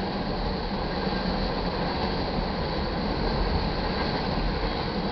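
A crude oil train's tank cars rolling past: a steady, unbroken noise of steel wheels on rail.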